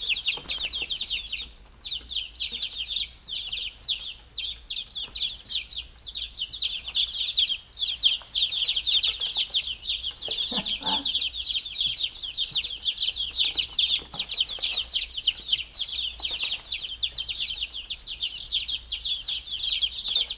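A brooder full of week-old baby chicks peeping nonstop, with many quick, high, downward-sliding peeps overlapping.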